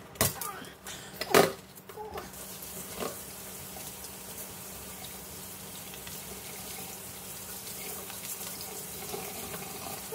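Water running from a kitchen tap into a stainless steel sink, the flow getting louder about two seconds in. Before that come a few sharp knocks, the loudest about a second and a half in.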